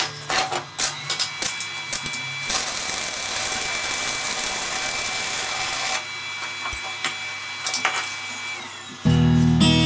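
A power tool's motor running with a steady high whine and a hissing rush of work in the middle, then spinning down near the end. Sharp metallic clicks and clinks come first. Guitar music starts just before the end.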